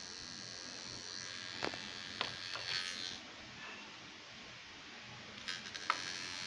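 WD Blue 1TB 2.5-inch laptop hard drive (WD10SPCX) running with a steady high whine and buzz, broken by sharp clicks about one and a half to two and a half seconds in and again near the end. This is the abnormal noise that the owner ties to the laptop freezing, a sign of a faulty drive.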